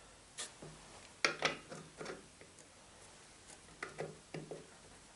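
Scattered light metallic clicks and knocks of small parts being handled on a Babetta moped engine while a chain sprocket is being fitted: a cluster about a second in and a few more around four seconds in.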